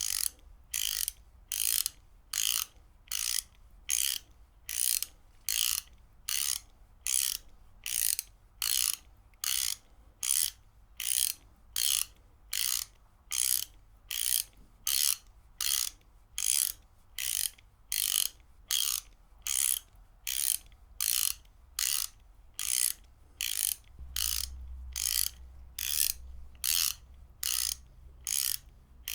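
Ratchet wrench being worked back and forth, its pawl clicking over the teeth in short, evenly spaced bursts, about three bursts every two seconds.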